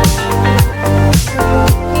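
Background music with a steady beat: falling bass-drum kicks about twice a second under sustained synth and guitar notes.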